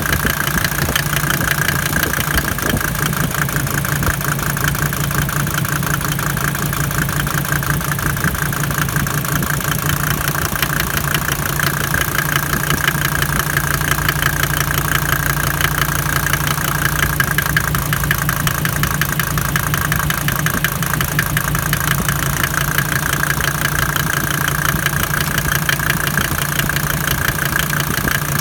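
Mercedes OM605 five-cylinder diesel engine idling steadily, with a fast, even knock that the owner puts down to a knocking injector nozzle, a new Bosch nozzle made in India.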